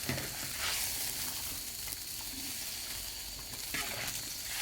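Braised pork intestines sizzling in a wok, a steady hiss, with a couple of short knocks, one at the start and one near the end.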